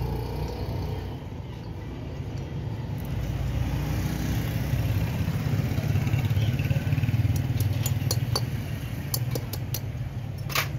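Steady low rumble of motor vehicle engines running nearby, swelling in loudness midway. Over it, a few light metallic clicks from small engine parts and pliers being handled, the sharpest one near the end.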